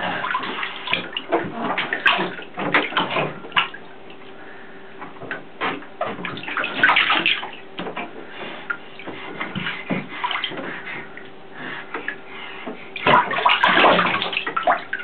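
Shallow bathwater splashing and sloshing in a bathtub as a baby kicks and paddles, in irregular bursts that are loudest near the end.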